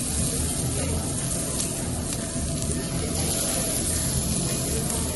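Beef sizzling and crackling steadily on a hot tabletop grill, over a low steady hum.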